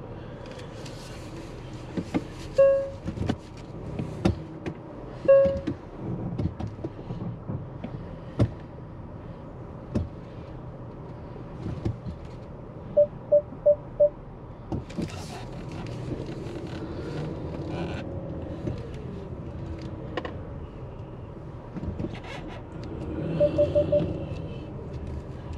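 Car moving slowly in city traffic, heard from inside the cabin: a steady engine and road hum with scattered clicks and knocks. Two single short beeps come a few seconds in, and a quick run of four short beeps comes twice, once in the middle and once near the end.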